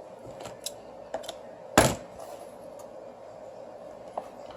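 Small clicks and taps of hands and tools handling double-sided adhesive tape on a phone frame at a repair bench, with one louder sharp knock about two seconds in.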